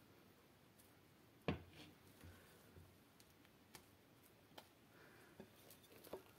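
Mostly quiet, with a few faint clicks and light knocks of a silicone spatula and glass bowl as chocolate truffle cream is scooped out and dropped onto a sponge cake sheet; the sharpest knock comes about a second and a half in.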